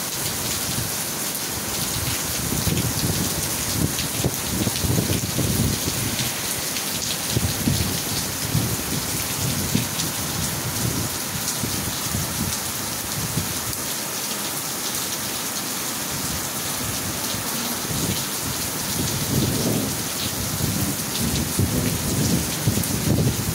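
Heavy downpour of rain falling on pavement, a steady rush of rain noise, with low rumbles coming and going every few seconds.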